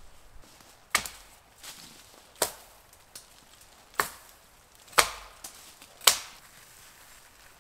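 Five sharp chops of a blade into conifer branches, spaced about a second apart and each ringing out briefly, as evergreen boughs are cut for a bed; the last two are the loudest.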